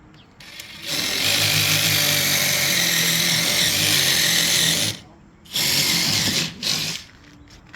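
Power drill running in three bursts: one long run of about four seconds, then two short ones close together near the end.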